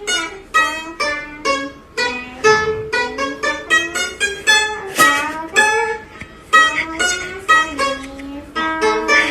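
Music: a plucked string instrument playing a light melody of separate, quickly fading notes, about two a second.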